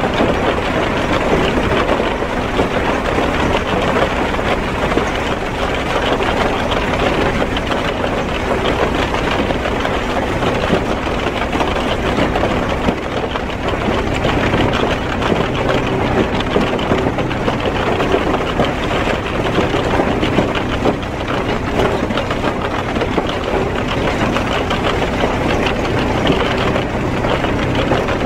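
Kleemann mobile hammer-mill crusher running steadily under load: a constant diesel engine drone with a dense rattle of rocks and soil pouring through the feeder into the crusher.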